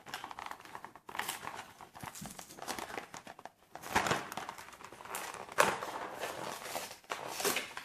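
Toy packaging being handled and opened by hand: irregular crinkling and rustling of the wrapping, with a few sharper crackles.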